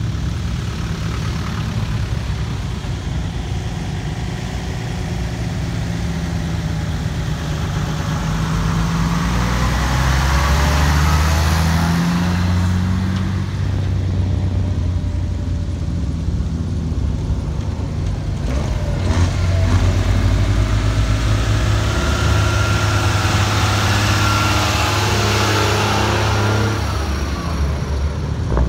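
Several military vehicles driving past one after another at low speed on grass, their engines running with a low hum that swells and fades as each goes by.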